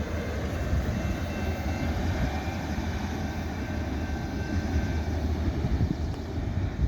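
Freight train rolling past: a steady low rumble of the grain train's cars on the rails, with faint thin tones above it.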